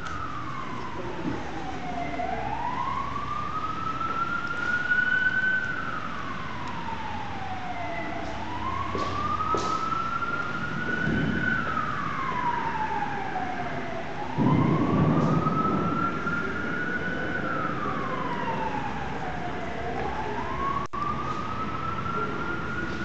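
An emergency siren wailing slowly up and down, each rise and fall taking about six seconds. A low rumble swells under it twice, loudest about two-thirds of the way through.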